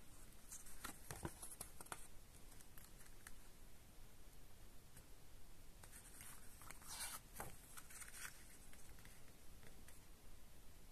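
Faint rustling of a CD booklet's paper pages being turned by hand, in two bouts: one from about half a second to two seconds in, with a soft thump, and another from about six to eight seconds in.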